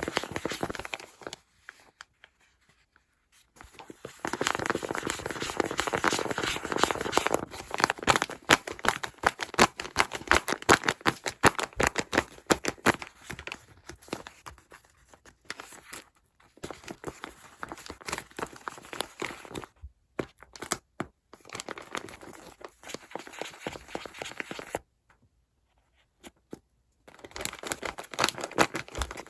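Paper crinkling and tearing in many quick rustling strokes as a handmade paper squishy blind bag is opened and handled. The sound drops out twice for a second or two.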